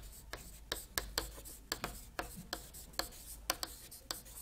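Chalk writing on a chalkboard: a run of sharp, irregular taps and short scratches, several a second, as the letters are formed.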